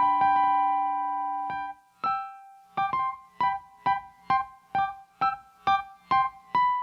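Improvised keyboard music with a piano sound: a held chord fades out, and after a short gap single notes are struck in a steady, even pulse of about two a second.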